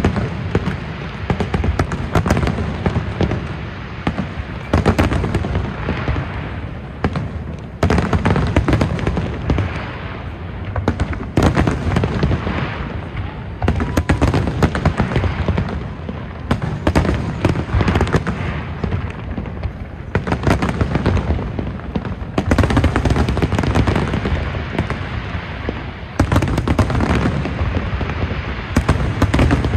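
Large aerial fireworks display: shells bursting in dense, overlapping volleys of booms and crackling, with a fresh barrage every few seconds.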